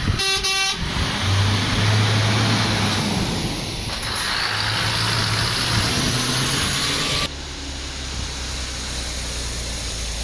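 Lorry diesel engine running and pulling away, with a brief horn blast near the start. The sound drops suddenly to a quieter engine and road noise about seven seconds in.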